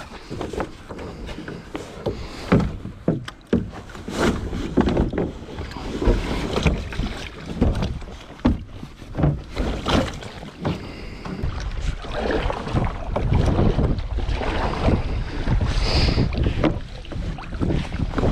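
Boarding and setting off in a plastic sit-on-top kayak: repeated knocks and bumps against the hollow hull and paddle splashes in the water, with wind buffeting the microphone.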